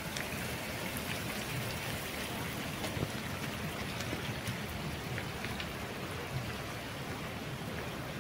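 Steady rain falling, an even hiss with scattered faint ticks.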